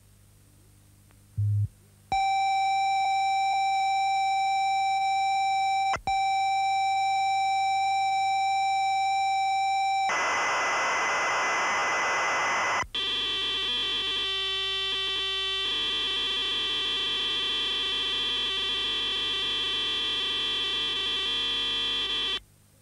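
Computer program data for the Apple II and ZX81 played off a professional reel-to-reel tape recorder. After a short low thump comes a steady high leader tone for about eight seconds, then about three seconds of harsh hiss, then a dense buzzing chord of data tones that cuts off suddenly near the end.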